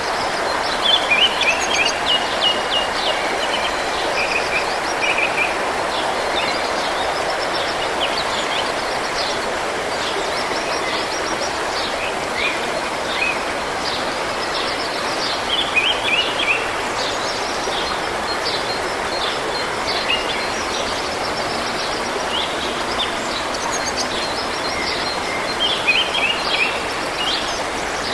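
Forest stream running steadily, with songbirds singing many short chirping phrases over it; the song comes in louder bursts about a second in, around the middle, and near the end.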